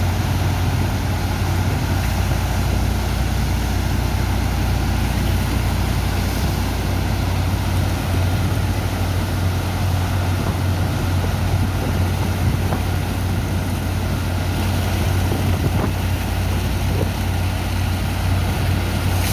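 Engine of a sand-dredger pump unloading sand from a barge, running steadily: a low, even drone with a constant rushing noise over it.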